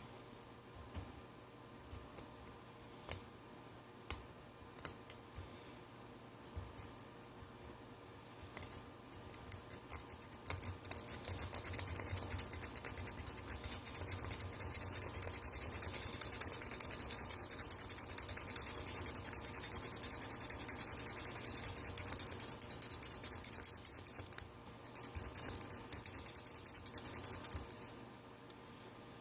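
Old touchscreen adhesive being scraped off a phone's frame. Scattered light ticks come first, then fast, continuous scratching strokes for over ten seconds, a brief pause, and a few more seconds of scratching.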